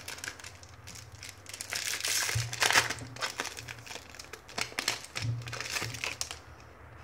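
Thin foil trading-card packet torn open and crumpled by hand, a crackling crinkle. It comes in two spells, loudest about two to three seconds in and again around five to six seconds, then stops.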